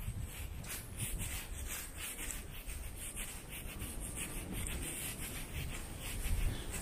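Wind buffeting the microphone as a low, steady rumble, with faint rubbing and scuffing steps from the camera being carried along at a walk.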